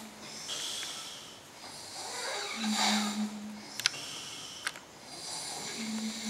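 Snoring: slow breaths in and out, some carrying a steady buzzing tone for about a second. Two short sharp clicks come about a second apart just after the middle.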